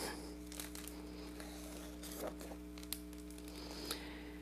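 Page of a large picture book being turned by hand: faint paper rustling with small ticks, over a steady electrical hum.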